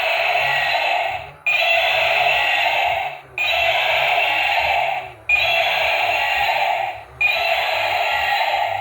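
A battery toy vehicle's electronic sound effect looping. Each buzzy burst starts abruptly and fades out, repeating about every two seconds.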